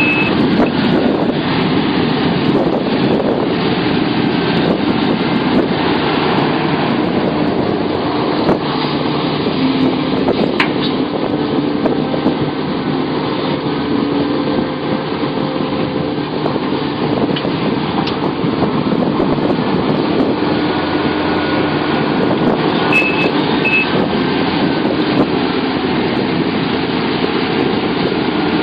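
Sumitomo SH700LHD-5 excavator's diesel engine running steadily, with a few brief knocks and a short double beep late on.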